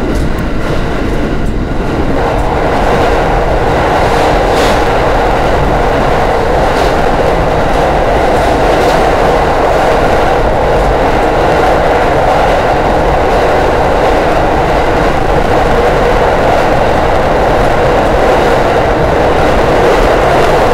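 Electric train running at speed through a tunnel, heard from inside the rear cab: a loud, steady running noise from wheels on rails, echoed back by the tunnel walls, that grows louder about two seconds in, with a few faint clicks of wheels over rail joints.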